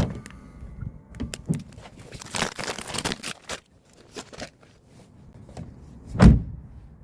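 Rustling, crinkling and small clicks of things being handled, with one heavy thump about six seconds in.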